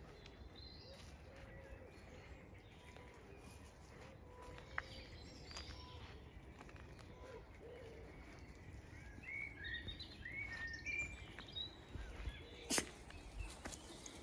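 Wild birds singing outdoors, with a run of chirps in the second half over a low wind rumble on the microphone. A single sharp click comes a little before the end.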